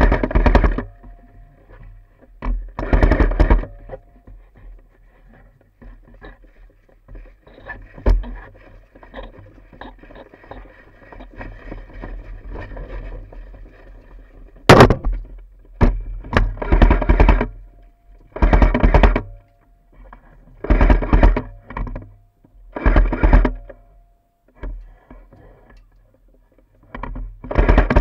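Airsoft rifle firing bursts of full-auto, each about a second long. There are a couple near the start, then about one every two seconds through the second half, with a single sharp crack about halfway through.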